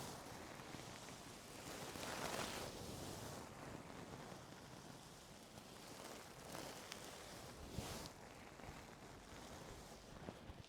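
Ear-cleaning tools scraping and rustling inside an ear canal right at the microphone: a soft, scratchy hiss that swells and fades several times, with a few faint clicks.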